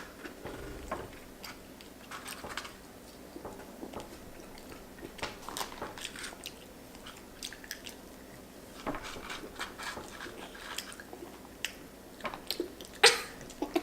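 Close-up mouth sounds of children biting and chewing food, with scattered small crunches and clicks. A louder burst comes near the end.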